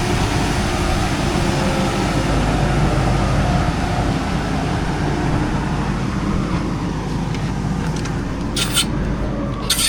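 Heavy diesel farm machine engine running steadily, with two short hisses near the end.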